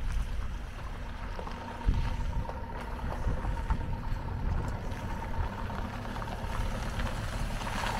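Wind buffeting the microphone: a low, uneven rumble with a sharper jolt about two seconds in.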